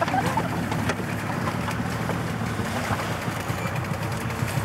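Outboard motor of an inflatable rubber boat running steadily, a low even drone.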